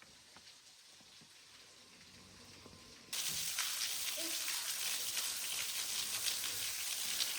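Faint quiet at first, then about three seconds in a steady hiss of rushing water starts abruptly and carries on.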